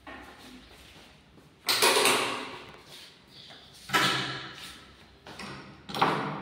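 Wooden house doors being swung open and shut, with three loud bangs about two seconds apart, each echoing briefly in the bare, empty rooms.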